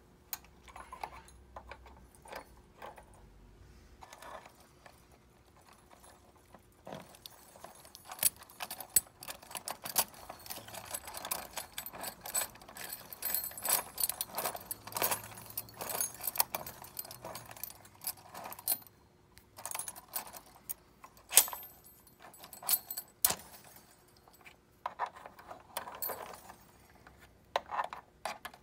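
Metal and plastic-headed key blanks jangling and clicking as they are handled and slid along metal pegboard display hooks, in irregular clusters of clicks. Sparse for the first several seconds, then busier from about eight seconds in.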